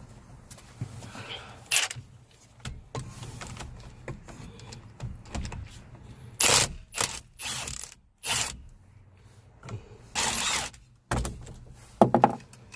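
Irregular clanks, scrapes and rattles of metal parts and tools being handled, with a few louder knocks and a longer scraping noise about ten seconds in.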